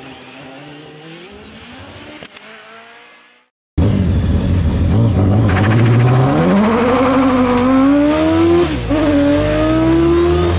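Background music fading out, then after a brief gap the loud engine of an open-cockpit sports racing car launching from the start line and accelerating away, its pitch climbing steadily. Near the end the pitch drops once at a gear change and starts climbing again.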